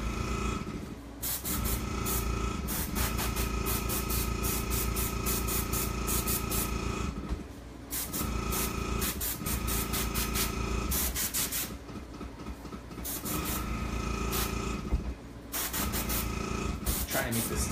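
Airbrush compressor running with a steady hum while the airbrush sprays food colouring in short hissing pulses. The hum and hiss stop briefly four times.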